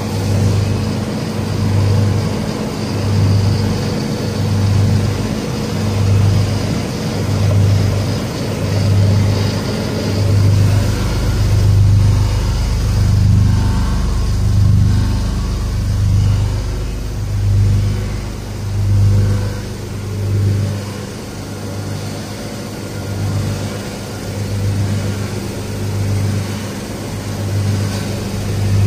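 V-S45 cable granulator running: a steady industrial machine hum whose low drone swells and fades about every one and a half seconds.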